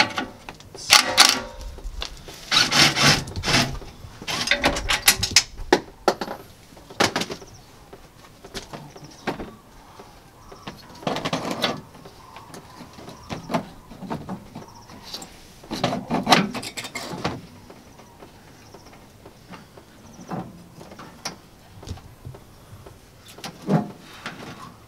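Intermittent knocks, clatters and scrapes of metal and plastic parts as a truck's AC condenser and intercooler are worked loose and shifted at the front of the radiator stack. The busiest rattling comes in the first few seconds, then single knocks follow every few seconds.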